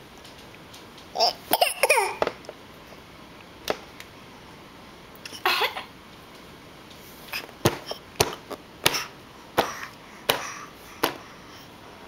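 Baby fake coughing: short, deliberate little coughs, a few voiced ones in the first seconds, then a run of about six quick coughs under a second apart in the second half.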